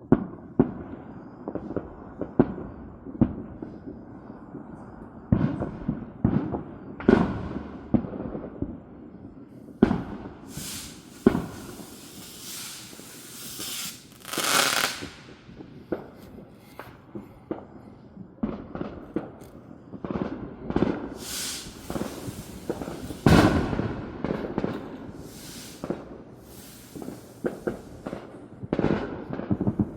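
Fireworks going off: many sharp bangs and pops at uneven intervals, with a few longer hissing bursts among them.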